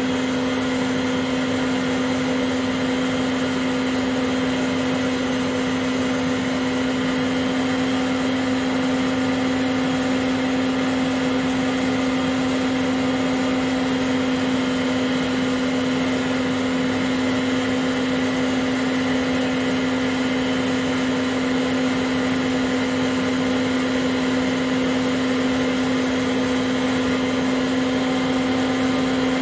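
Old vacuum cleaner run as a blower, its motor giving a steady hum with a strong, even pitch as it pushes air through a hose to inflate a large inflatable pool.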